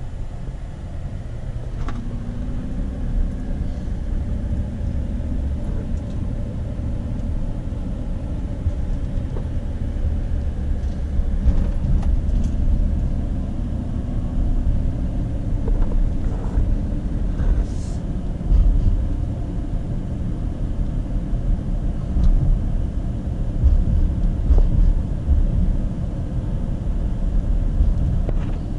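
A car driving, heard from inside the cabin: a steady low rumble of engine and road noise, with a few light knocks here and there.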